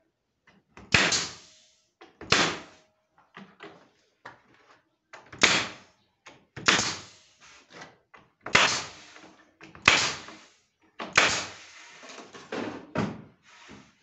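Pneumatic pin nailer driving pins through cedrinho ceiling boards into a wooden frame. About nine shots come at irregular intervals of one to two seconds, each a sharp snap followed by a short hiss.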